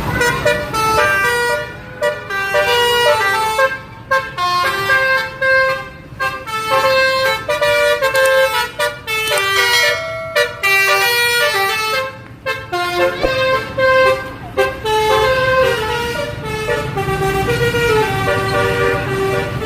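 Basuri telolet horn, a multi-tone bus-style musical horn, playing a quick melody of stepped notes, several tones sounding together, with brief pauses between phrases.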